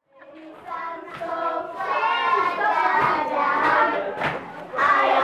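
A group of children singing together, starting out of silence and growing louder about a second in.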